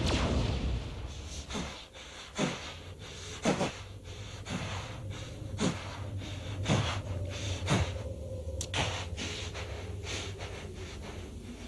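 Heavy panting from the exhausted Guyver, about one breath a second, over a low steady hum. A rumble from an explosion dies away at the start.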